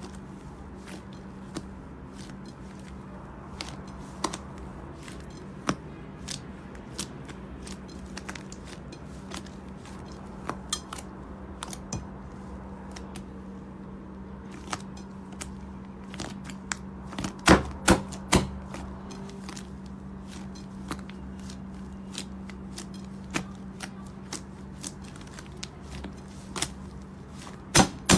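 Slime being pressed and played with, giving irregular sharp clicking pops, with a louder run of pops a little past halfway, over a steady low hum.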